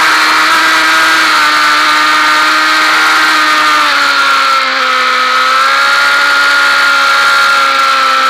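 Onboard sound of a Honda Fireblade's inline-four engine running hard, its pitch easing slowly down as the bike slows from about 96 to 71 mph through a bend, with steady wind rush over the camera.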